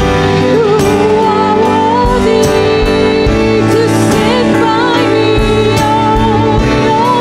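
Live worship music: a woman singing a slow melody with vibrato over sustained keyboard chords, with a light percussion beat.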